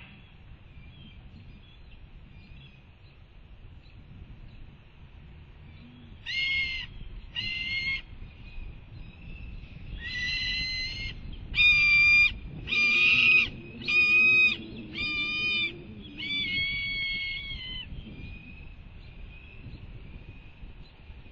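Juvenile red-tailed hawk begging for food: a series of about eight drawn-out, pitched cries, each about a second or less, starting about six seconds in and loudest in the middle of the run.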